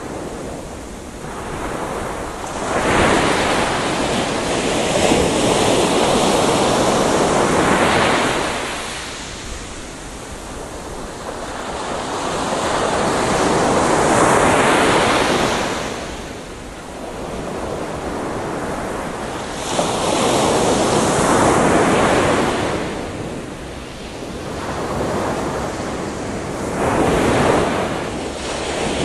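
Gentle ocean waves breaking on a beach, the wash swelling and receding in slow surges about every five to seven seconds.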